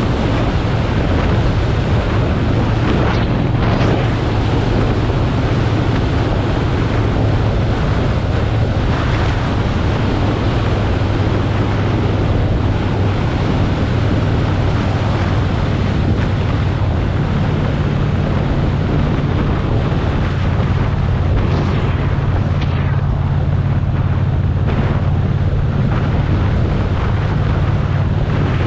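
Motorcycle engine running steadily at road speed under heavy wind noise on the microphone. The engine note rises slightly about two-thirds of the way through.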